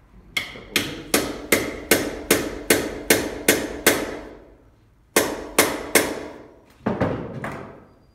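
A mallet knocking the end of a BMX handlebar grip to drive it all the way onto the bar. There are about ten evenly spaced knocks, roughly two and a half a second, each ringing briefly. After a short pause come three more knocks and then one last one.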